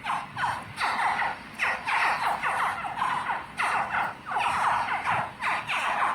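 Baby Cuban crocodiles calling: a quick, busy run of short, high chirps, each falling in pitch, about two or three a second and overlapping, as from several hatchlings at once.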